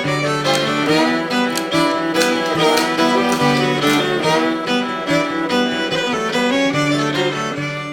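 Background music played on strings: a violin melody over sustained low notes, with quick plucked notes throughout.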